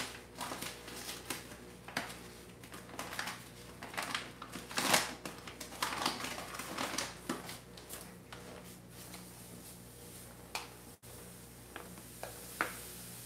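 A bag of granulated sugar being handled and opened: a run of short rustles and clicks. About eleven seconds in, the sugar starts pouring from the bag into a stainless steel saucepan with a soft hiss.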